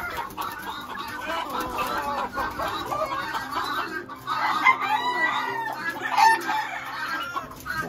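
Several caged roosters crowing and clucking over one another, with a longer crow about halfway through.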